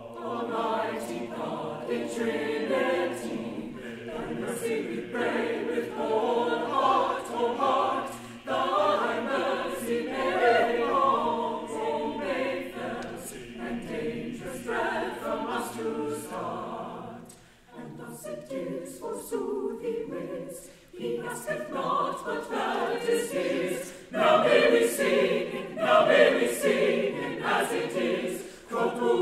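Large mixed choir of women's and men's voices singing together. The singing begins right at the start out of silence, with two brief breaks about two-thirds of the way through.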